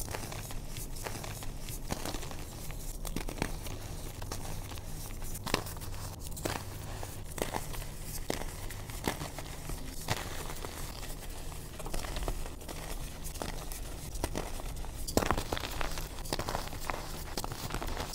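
Soft reformed gym chalk crushed and crumbled between the fingers into loose chalk powder: a run of soft, crisp crunches over a powdery rustle, growing denser near the end.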